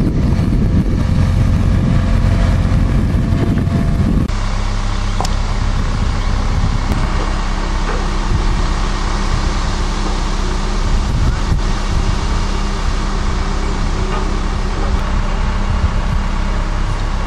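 Heavy diesel engine of a large mobile crane running steadily during a lift, a low, even drone. The sound drops abruptly about four seconds in and carries on a little quieter.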